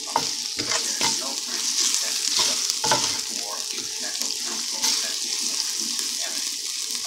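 Diced onions and green chillies sizzling in hot oil in a pan, stirred with a wooden spatula that scrapes and knocks against the pan bottom in short irregular strokes over a steady hiss.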